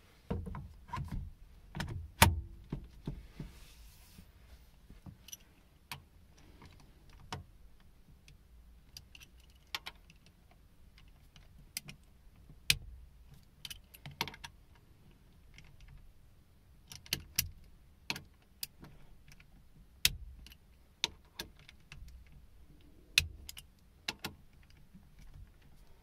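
Hand tools clinking and clicking against steering-wheel bolts and the quick-release hub as the wheel is bolted on: scattered, irregular sharp metallic clicks, the loudest about two seconds in.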